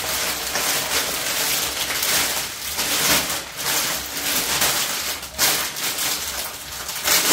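Continuous rustling and crinkling of packaging being handled and opened to take out a scarf.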